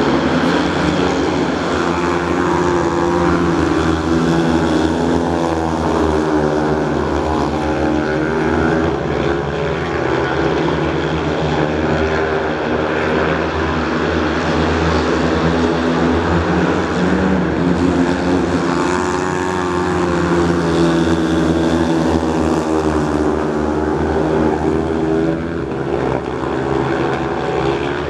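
Several speedway motorcycles racing together on a dirt track, their engines running hard with the pitch rising and falling again and again as the riders open and close the throttle through the laps.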